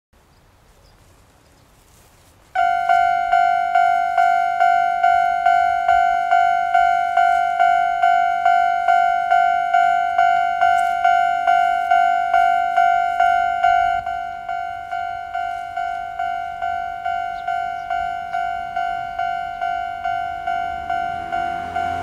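Japanese railway level-crossing warning alarm, an electronic bell that starts about two and a half seconds in and rings about twice a second. About two thirds of the way through it steps down to a quieter level, the usual volume reduction once the crossing barriers have come down.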